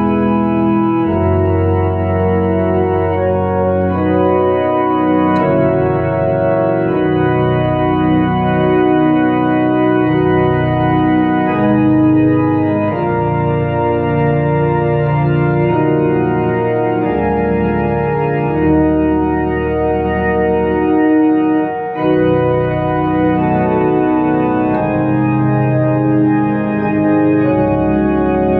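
Tokai YX 400 Organist electronic organ on a pipe-organ registration, playing a slow hymn in held chords over bass notes, with a brief break between phrases about three quarters of the way through.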